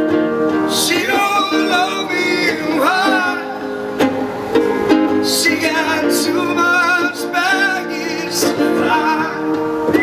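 Live acoustic song: strummed plucked-string chords, guitar or ukulele, under a voice singing long wavering notes in two phrases.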